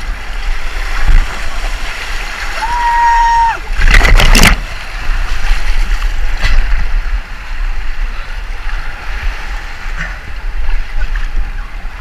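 River water rushing and splashing against an inflatable raft running a rapid, with a loud splash about four seconds in.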